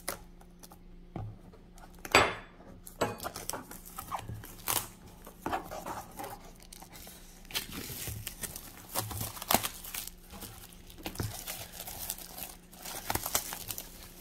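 Clear plastic shrink wrap being torn and peeled off a boxed Bible: irregular crinkling and tearing throughout, with the loudest rip about two seconds in.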